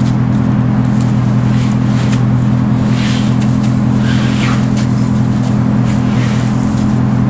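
An engine running steadily nearby with a constant, even low hum, with a few brief scuffing noises about halfway through.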